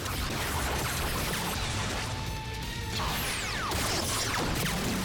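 Action-scene soundtrack: background music under crashing impact and explosion sound effects, with a cluster of falling whistling sweeps about three seconds in.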